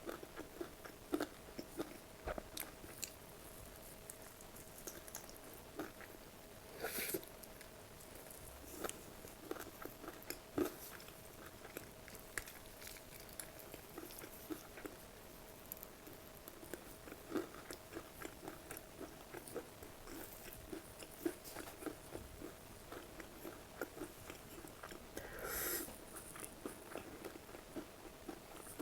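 Close-miked mukbang eating: chewing and biting with frequent short crunchy, wet clicks, and two brief louder hissing sounds, one about seven seconds in and one near the end.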